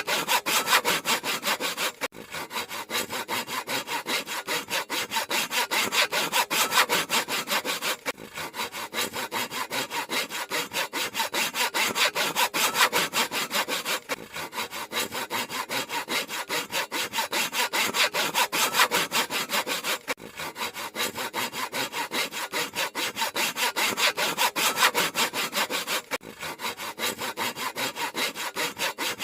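Handsaw cutting through wood in rapid, even back-and-forth strokes, with a brief break about every six seconds.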